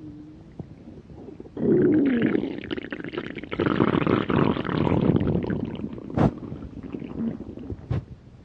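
A stomach growling: a long, loud gurgling rumble that starts suddenly about one and a half seconds in and bubbles on for several seconds, followed by two short sharp pops before it fades.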